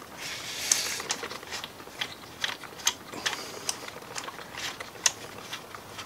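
Screws being hand-tightened on a wooden jig holding a hydraulic crimping tool: a series of light, irregular clicks and knocks, with a short scraping rub about half a second in.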